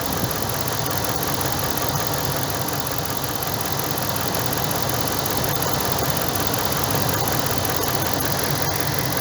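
Dodge Ram pickup's V8 engine idling steadily during an ignition coil test.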